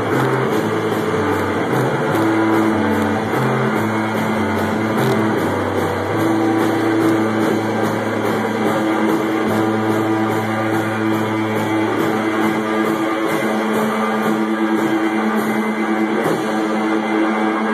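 Live rock band playing: an electric guitar holds low, sustained notes that change every second or two over regular drum-kit hits.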